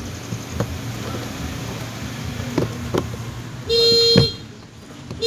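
A few light plastic clicks as the door trim panel is pressed onto its clips, then a single loud horn-like electronic beep of about half a second near the end, typical of a car alarm chirping.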